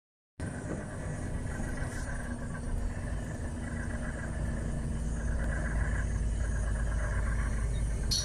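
Steady low rumble of a road vehicle driving at an even speed, heard from inside the cab: engine and road noise with a faint steady hum.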